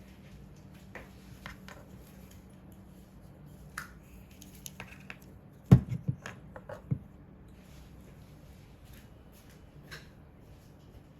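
Scattered small clicks and taps of a computer mouse and its small parts being handled, with a short run of louder knocks about halfway through.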